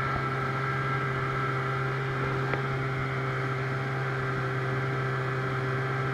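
Outboard motor pushing a small aluminum jon boat, running at a steady even speed, with one faint tick about two and a half seconds in.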